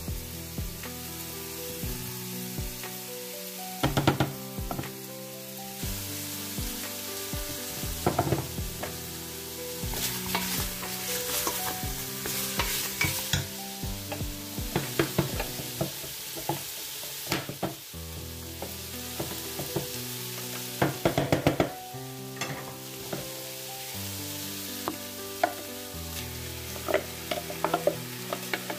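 Chunks of meat sizzling in a stainless steel pot, with a spoon stirring and knocking against the pot now and then.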